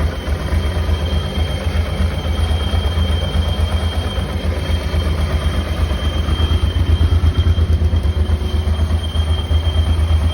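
Honda Transalp PD06's V-twin engine idling, with a steady high-pitched squeal over it. The squeal comes from the water pump, damaged by standing unused, which has seized.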